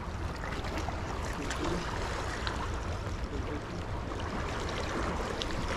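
Small sea waves washing and lapping among rocks at the water's edge, a steady rushing sound, with wind rumbling on the microphone and a few faint light ticks.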